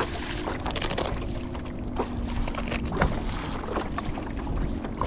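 Water splashing along the hull of a Hobie Lynx pedal kayak under way, with wind rumbling on the microphone and a few light knocks.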